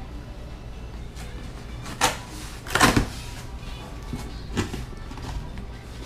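Cardboard shipping box being handled and opened: scattered rustles and knocks, the loudest two to three seconds in.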